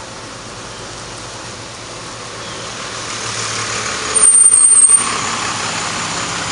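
A road vehicle going by outside, its noise growing steadily louder, with a brief shrill brake squeal about four seconds in.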